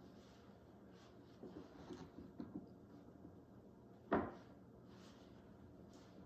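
Faint scraping and small knocks of a cookie dough scoop working stiff dough in a glass bowl, with one sharper knock about four seconds in.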